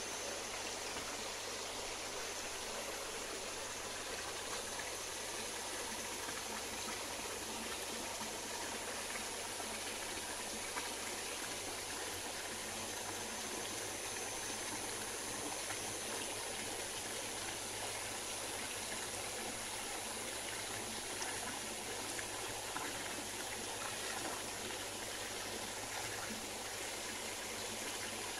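Steady bubbling and splashing of air lines aerating a concrete koi pond, air breaking the water's surface in several spots.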